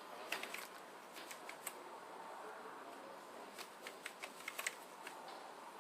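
Scattered light clicks and taps in small irregular clusters, with the busiest run about four seconds in, over a faint steady hiss.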